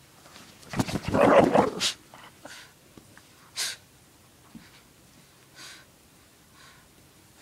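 Shih Tzu growling in tug-of-war play for about a second, near the start, while pulling on a fleece blanket; a few short breathy snorts follow.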